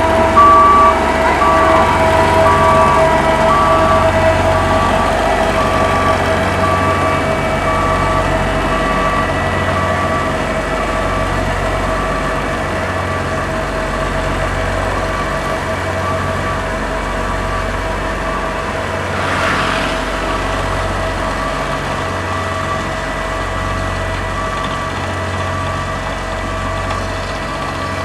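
Road roller's reversing alarm beeping steadily, a little more than once a second, over its diesel engine running with a slow low pulsing, the whole growing slowly fainter. A brief hiss about two thirds of the way through.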